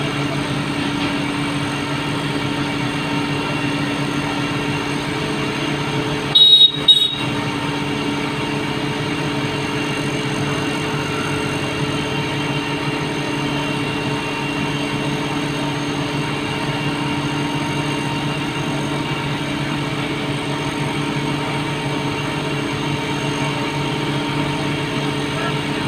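An engine running steadily at a constant pitch, a low, even hum. About six seconds in there is a brief loud double burst.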